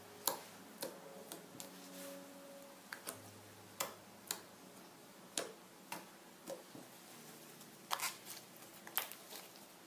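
Slime being poked and squeezed by hand, giving irregular sharp clicks and pops as trapped air is pressed out, more than a dozen of them with no steady rhythm.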